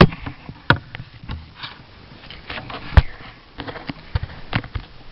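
Scattered knocks and clicks: a sharp knock at the start, another just under a second in, the loudest about three seconds in, then several smaller taps.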